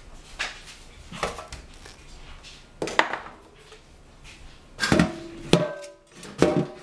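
Glass baking dishes knocking and clinking against the tiled counter and steel sink as they are moved about: a handful of sharp knocks, the loudest near the end ringing briefly.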